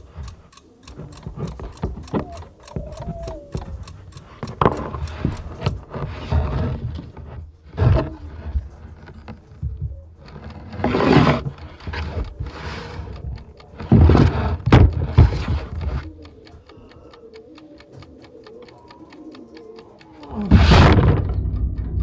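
A sound-design track of abstract effects: fast clicks at first, a string of noise swells, then faint rapid clicking and a loud, deep swell near the end.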